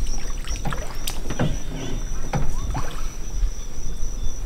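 Small fishing boat knocking and rocking in the water as an angler fights a hooked fish: a low rumble with a few scattered knocks, and a thin steady high tone.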